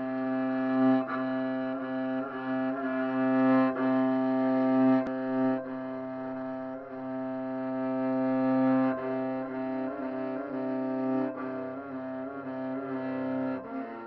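Slow instrumental background music: a low note held throughout under a slow, sustained melody.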